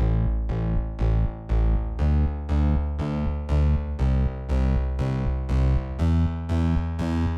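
Background music: synthesizer keyboard chords struck about twice a second in a steady beat.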